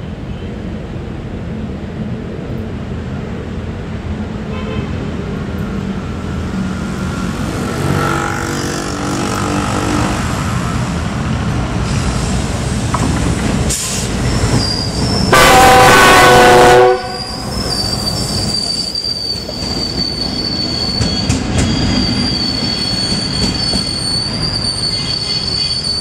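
Pakistan Railways GEU-40 diesel-electric locomotive approaching and passing with its engine running. A little past halfway it gives one very loud horn blast lasting about a second and a half. A steady high-pitched wheel squeal follows as it rolls by.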